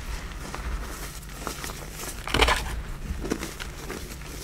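Hands crushing and crumbling dyed black reformed gym chalk in loose chalk powder: a soft, continuous crunching and crackling, with a louder crunch a little past halfway.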